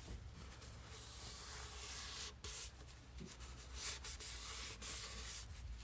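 Paper shop towel rubbing quickly over the wooden edge of a radio cabinet, wiping off freshly applied ebony dye stain: a faint, steady scratchy rubbing with a couple of brief pauses.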